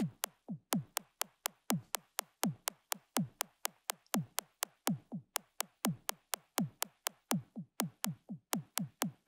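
Sampler hits from a pitch-enveloped sample in Ableton Live, about four a second: each is a sharp click with a short thump that drops in pitch, and their loudness is uneven. They are what comes through from the sample and its phase-inverted copy failing to cancel, which the producer takes for MIDI timing jitter in Live's engine.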